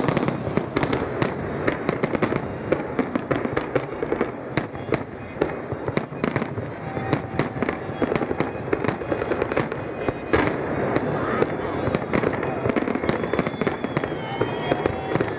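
Large aerial fireworks display: a dense, continuous barrage of shell bursts, with sharp bangs and crackling many times a second and one especially loud bang about ten seconds in.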